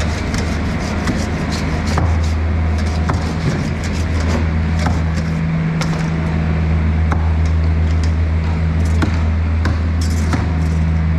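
A motor running steadily with a constant low drone, with scattered light clicks and taps from a knife working on a cut of fish on a steel floor.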